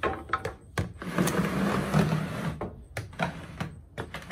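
Plastic storage tote pushed with a long pole along a pickup's slide-out bed, scraping as it slides about a second in, with scattered knocks and clicks from the pole and tote.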